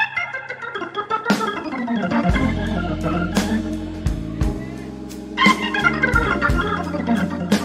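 Background music: an organ-like keyboard plays quick notes over held bass notes, with a sharp hit about every two seconds.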